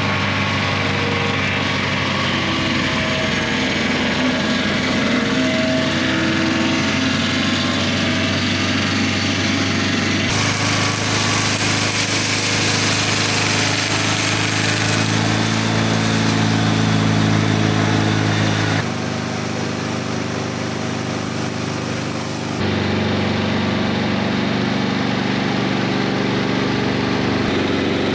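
Gas engine of a Mobile Dimension circular-blade sawmill running steadily, its blades sawing boards from a log. The sound changes abruptly about ten, nineteen and twenty-three seconds in.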